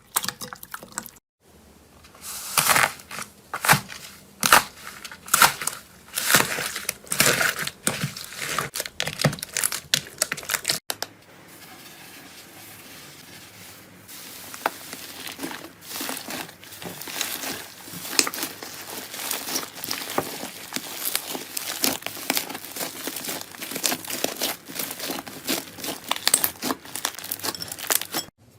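Slime being squeezed and pressed by hand, crackling: at first in separate loud squishes about once or twice a second, then, after a sudden cut a little over a third of the way in, as a denser, quieter run of fine crackles.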